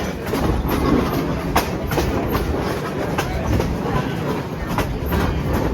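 Passenger train rolling along the track: a steady low rumble with scattered sharp clicks of the wheels over the rails.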